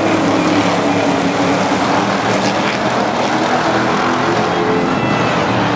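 Stock cars racing around an oval track: the engines of several cars blend into one loud, steady drone.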